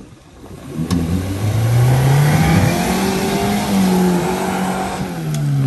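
Small four-wheel-drive's engine revving hard as it drives through a deep muddy bog hole, with mud and water splashing. The engine note climbs about a second in, holds high, dips briefly near the end and rises again.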